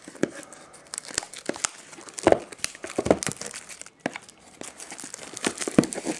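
Plastic wrapping being crinkled and torn off a sealed trading card box, a run of irregular crackles with a few louder snaps.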